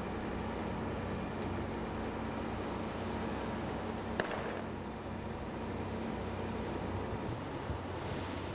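Steady rumbling outdoor noise of a large fire scene with a low steady hum under it, broken by one sharp crack about four seconds in.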